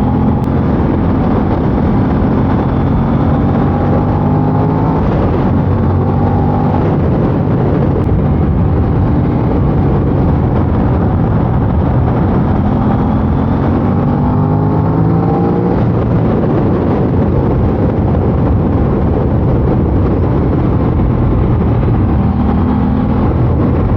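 Aprilia RS660's parallel-twin engine through its stock exhaust, pulling and climbing in revs several times as the bike accelerates through the gears, over a steady rush of wind and road noise.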